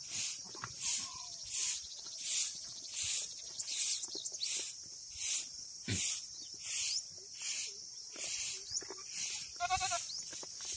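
A goat gives one short bleat near the end, over a steady high hiss that pulses about three times every two seconds.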